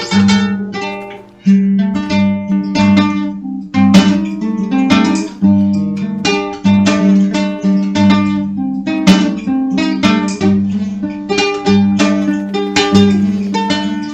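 Acoustic guitar music: plucked and strummed notes over a held low note, in a slow dark folk style. The playing drops away briefly about a second in, then resumes.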